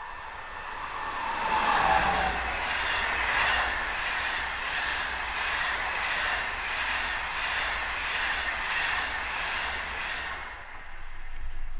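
Electric passenger train passing close at speed, an electric locomotive hauling SBB coaches. A falling whine comes as the locomotive goes by about two seconds in. After it comes a steady rush with an evenly repeating clatter of the coaches' wheels, which eases off near the end.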